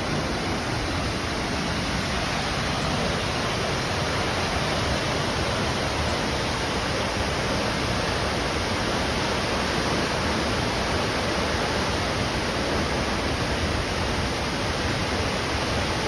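Marokopa Falls, a large waterfall in heavy brown flow, giving a steady, dense rushing of falling water.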